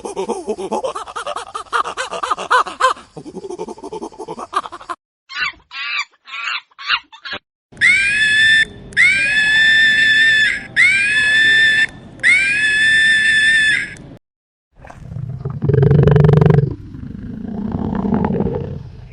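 A run of different wild animal calls. Low grunting comes first, then about five short calls, then four long high-pitched calls of about a second each. A deep roar, the loudest part, starts about fifteen seconds in.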